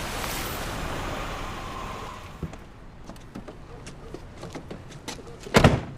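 A passing vehicle's noise fading away over the first two seconds, followed by light scattered knocks like footsteps and a single loud thump about five and a half seconds in.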